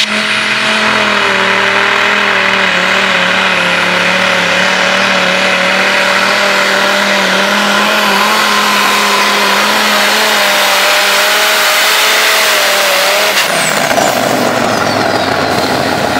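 Modified pulling tractor's engine running flat out under load as it drags the weight sled, loud and steady with a held pitch. About 13 seconds in the engine note drops away as the run ends, and a high whine falls in pitch.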